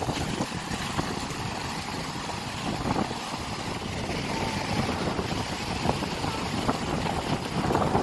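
Rough sea surf breaking and washing up a sandy beach, with strong wind buffeting the microphone in a steady low rumble.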